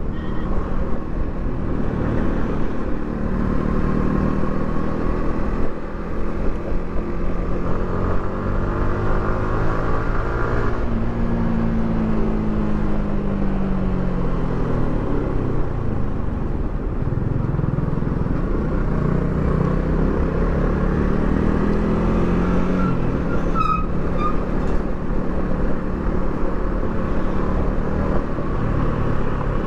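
Yamaha R15 V3's single-cylinder engine through its stock exhaust while riding: revs rise and fall several times with throttle and gear changes, over a steady rush of wind and road noise. A few brief high chirps come about two-thirds of the way through.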